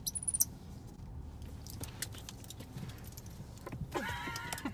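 Clicking and jingling of metal bits as pet capuchin monkeys move about in a car's cabin, over a low steady hum. A few very high, thin squeaks come in the first half-second, and a drawn-out call bending in pitch comes about four seconds in.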